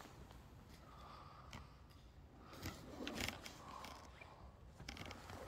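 Faint footsteps crunching over fallen plaster and grit, with scattered small clicks, busiest about three seconds in.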